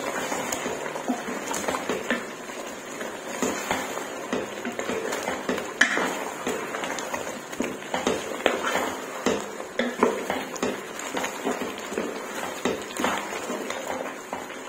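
Wooden spatula stirring chicken karahi in a pot, mixing in ground black pepper, with irregular scrapes and knocks of the spatula and chicken pieces against the pot.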